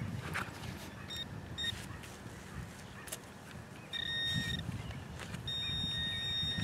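Handheld pinpointer probing a freshly dug hole: two short beeps about a second in, then a steady high tone near four seconds and a longer steady tone from about five and a half seconds, as it closes in on a buried coin. Low rustling of dirt and handling runs underneath.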